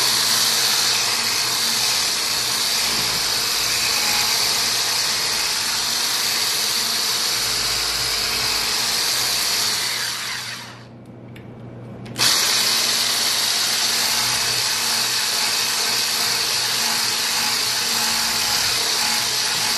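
Electric stick blender with a wire whisk attachment running steadily, whisking a wet pie-filling mixture in a stainless steel bowl. The motor stops about ten and a half seconds in and starts again a second and a half later.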